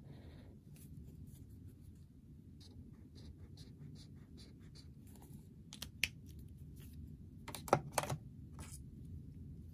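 Stabilo Boss highlighter's chisel tip scratching over notebook paper in short, quick zigzag strokes, then a few sharp plastic clicks near the end as the pen is put back in its plastic stand.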